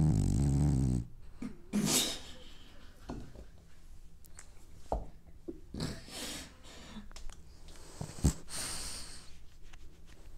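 A French bulldog snoring and breathing noisily in its sleep: one loud snore at the start lasting about a second, then softer breaths every two to three seconds, with a few short clicks.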